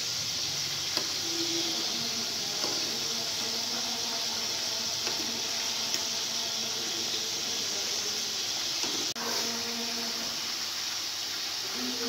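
Hot oil sizzling steadily as a panful of chicken-mince koftas deep-fries, with a momentary dropout about nine seconds in.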